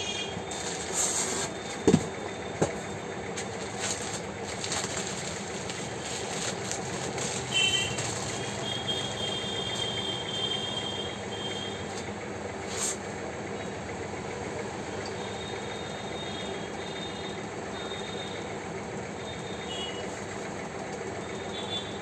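Steady hum of street traffic, with a few high beeping tones in the middle and later on. Over it come the rustle and knocks of the fan motor being handled out of its plastic wrapping, with a couple of sharp knocks about two seconds in.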